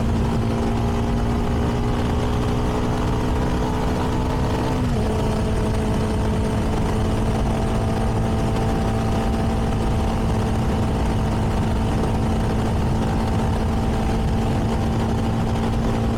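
CFMoto 300NK's single-cylinder engine, on its stock exhaust, running at a steady cruising speed under a rush of wind and road noise. Its note drops slightly about five seconds in, then holds steady.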